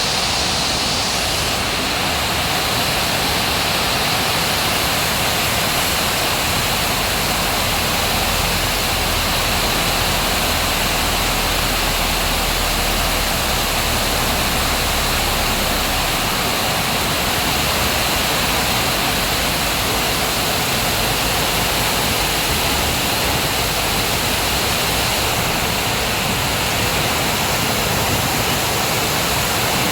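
Heavy rain pouring down in a strong windstorm: a steady, unbroken hiss, with a deeper rumble swelling for several seconds in the middle.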